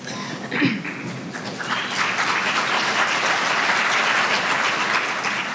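Audience applauding, building up about a second and a half in and tapering off near the end.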